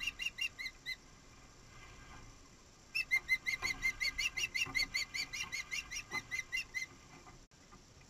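Osprey calling, a rapid series of short, high whistled chirps. A brief run comes at the start, then about two seconds later a longer run of about six chirps a second lasts for some four seconds.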